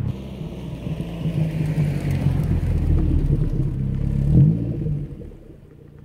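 Small hatchback's engine running as the car pulls up, with a brief rise in engine note about four seconds in, then dropping to a quieter steady idle as the car comes to a stop.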